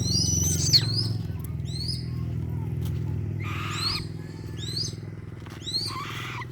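Rufous-winged buzzard calling: a string of short, high, sharply falling cries, several coming in quick pairs, over a steady low hum.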